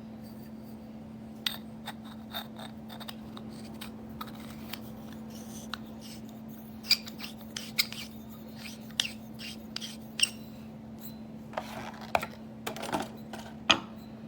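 Parts of an aluminium headphone stand being handled and fitted together by hand: scattered light clicks, taps and scrapes of metal, with a few sharper clinks in the second half, over a steady low hum.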